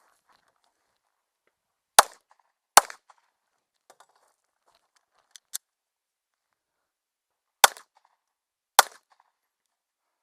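HK SFP9 pistol fired four times: two shots under a second apart, a pause with two faint clicks, then two more shots about a second apart.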